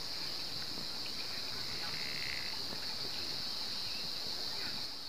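Steady high-pitched insect drone in open grassland, with a few faint short bird chirps over it.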